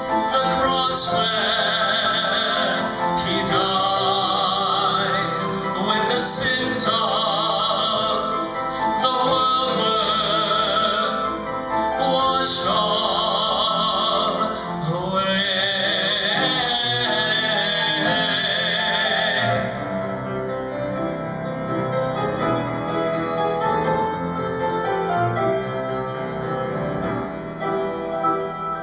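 A song: a singer holding notes with vibrato over piano accompaniment. The voice stops about twenty seconds in and the piano carries on alone.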